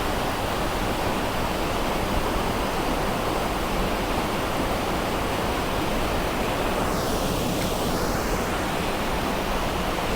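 Steady rushing noise of flowing water, even and unbroken, with a brief sweeping change in tone about seven seconds in.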